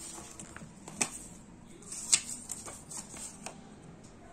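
Paper rustling and crackling as a folded instruction leaflet and a paper card are handled, with sharp crackles about one second and about two seconds in.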